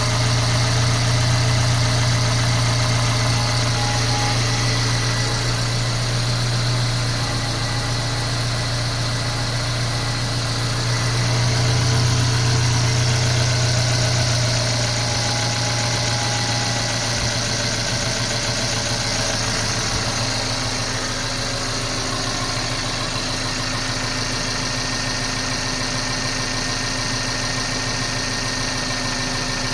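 Mercedes-Benz C180 (W205) engine idling steadily, with a low hum that eases off somewhat about halfway through. The owner is chasing a knock from somewhere in the car.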